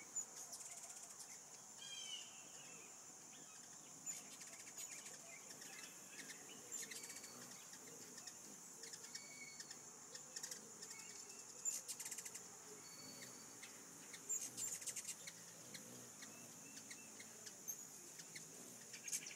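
Faint hummingbird chirps and brief chittering flurries, scattered irregularly, around a hand-held feeder, over a steady high-pitched insect drone.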